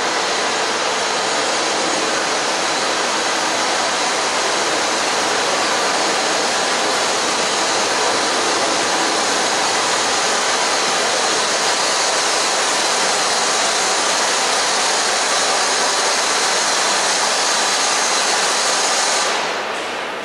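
Steam locomotive 35028 Clan Line, a rebuilt Merchant Navy class Pacific, blowing off steam at its safety valves while it stands: a loud, steady roaring hiss. The boiler is at full pressure. The hiss cuts off suddenly near the end.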